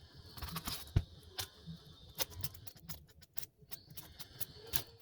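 Scattered light clicks and taps of small objects being handled, the sharpest about a second in.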